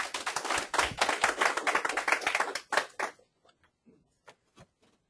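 Small room audience applauding for about three seconds, the clapping stopping abruptly, followed by a few faint scattered clicks.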